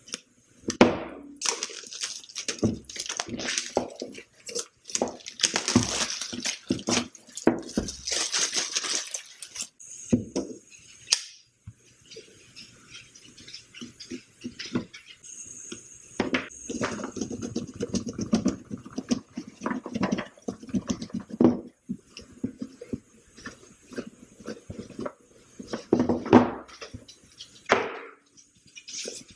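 Cardboard packaging being opened by hand: a pocket knife slitting the seal on a white box, then irregular scraping, sliding and rustling as the box is worked open. A few sharper knocks, the loudest about a second in and near the end.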